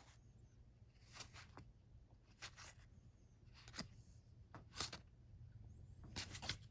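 Faint slides and flicks of cardstock game cards being handled and turned, a short soft scrape about every second, over a low steady room hum.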